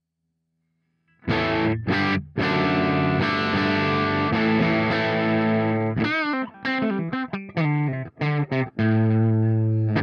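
Electric guitar played direct through a TC Electronic JIMS 45 pedal, a Marshall JTM45-style amp and cabinet simulator. After about a second of silence come two short chord stabs, a long ringing chord, a run of short choppy chords, and a final held chord near the end.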